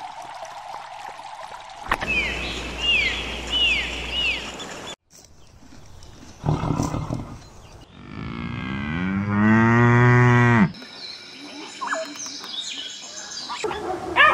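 A cow mooing: one long moo of about two and a half seconds, rising and then falling in pitch, which is the loudest sound here. Before it come a few short high calls about a second apart, each falling in pitch.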